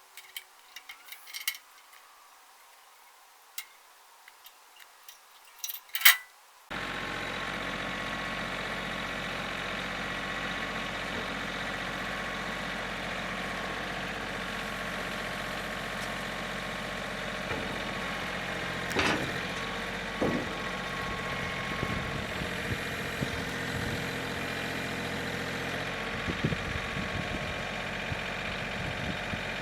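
Scattered light clicks and knocks, then a sharp loud clack about six seconds in. An engine then runs steadily, with a few knocks over it.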